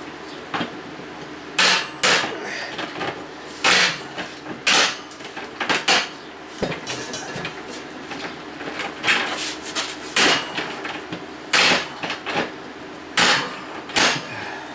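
Metal tools clanking and knocking: about a dozen loud, irregular clanks and rattles over some fifteen seconds, with quieter handling noise in between.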